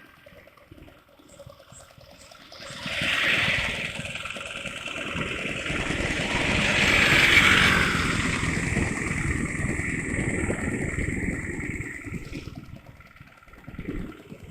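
Motorcycle engine and rushing noise picked up by an action camera while riding. It is faint at first, swells sharply about three seconds in, then fades near the end: uneven loudness that the rider puts down to the camera's automatic noise reduction.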